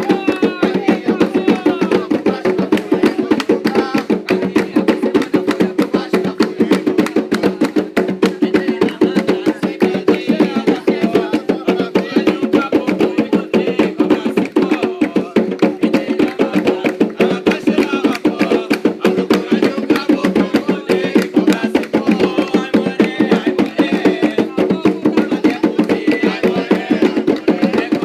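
Atabaque hand drums playing a fast, steady ritual rhythm of Umbanda drumming, with voices faintly behind.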